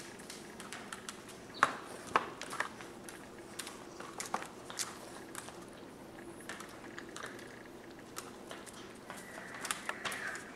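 English bulldog puppies gnawing on a chew and scrabbling over a plastic puppy pad: scattered sharp clicks, scrapes and crinkles, the two loudest about a second and a half and two seconds in.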